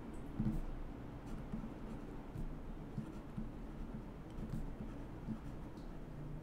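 Faint, irregular taps and scratches of a stylus handwriting words on a digital pen tablet.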